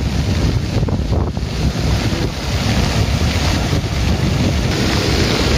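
Typhoon floodwater rushing and churning over an embankment edge, a steady roar, with gusty wind buffeting the microphone in a deep rumble.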